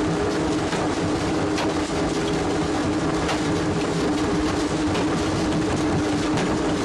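A small jaw crusher running with a steady hum as its jaws grind and break lumps of granite, with scattered sharp cracks of stone splitting.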